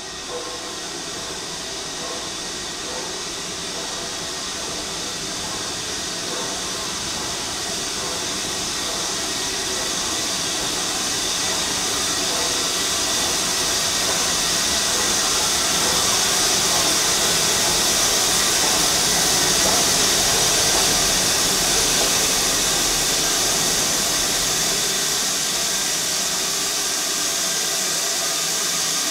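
Steam hissing from BR Standard Class 9F 2-10-0 steam locomotive No. 92134 as it runs into the platform and comes to a stand, growing steadily louder as it draws near, with a low rumble as it passes close.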